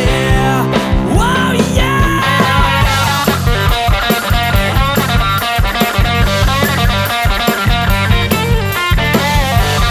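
Rock band playing a sixties cover song: electric guitar over a drum kit keeping a steady beat, with notes that bend in pitch about a second in.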